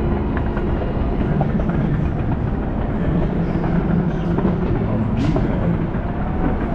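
Fireworks going off continuously: a dense, steady rumble full of rapid crackles and bangs, with the voices of a large crowd underneath.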